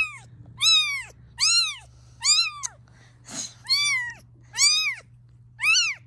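Young grey British shorthair kitten crying loudly and repeatedly: high-pitched mews, each rising and falling in pitch, about one a second.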